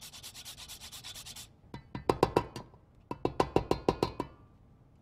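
Whole nutmeg rasped on a microplane grater in quick strokes for about a second and a half. Then come two runs of rapid ringing metallic taps, several a second, as the grater is knocked against the rim of a stainless steel mixing bowl.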